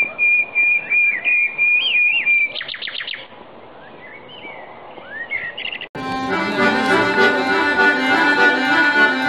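A bird-like whistled song for about six seconds: a high held note with warbles, then a quick trill and scattered chirps. It then cuts abruptly to a solo accordion playing a tune.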